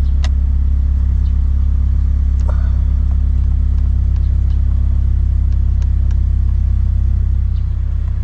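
Toyota 86 / Subaru BRZ engine idling steadily, a loud, even low rumble, with a few faint clicks over it. The rumble shifts slightly near the end.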